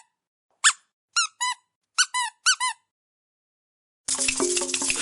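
Squeaky rubber dog toy squeezed seven times in short pitched squeaks, some in quick pairs, each rising then falling in pitch. After a pause, a loud clatter of many toys rattling together begins about a second before the end.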